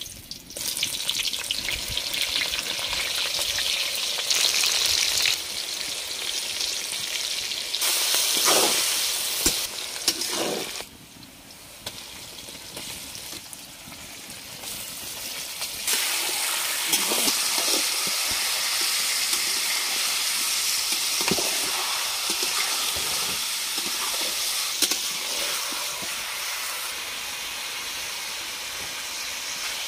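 Chicken pieces frying in hot mustard oil in a metal kadhai: a steady loud sizzle, with a few knocks and scrapes of the spatula in the pan. The sizzle drops off for a few seconds about a third of the way in, then comes back strongly.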